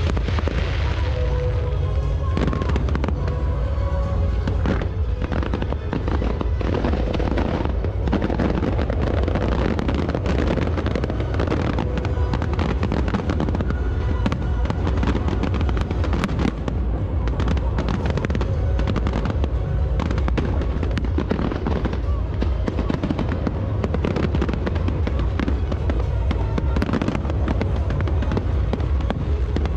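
Aerial fireworks display: a dense, unbroken barrage of shells bursting and crackling, one report on top of the next, over a deep rumble.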